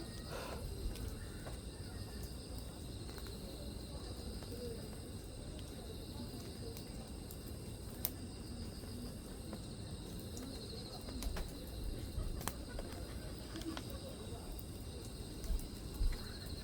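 Bonfire burning with a steady low rumble and a few sharp pops, about 1, 8 and 12.5 seconds in. Insects trill faintly in the background.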